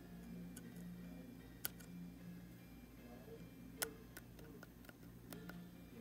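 Faint handling noise: two sharp clicks about two seconds apart, with a few softer ticks, over a low steady hum.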